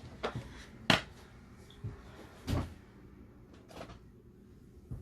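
Five light knocks and clacks of hard objects being handled and set down while a makeup brush is fetched, the sharpest a little under a second in and a duller thud about halfway through.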